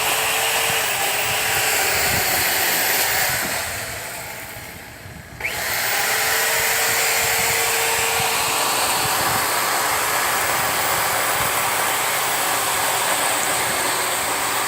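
Power tool trimming a tree, running steadily with a whirring hiss. It eases off and fades about four seconds in, then comes back on at full speed a second later and runs on evenly.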